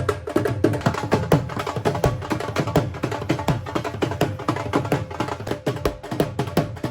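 Background music driven by fast, busy hand percussion, with a steady beat of many strikes a second.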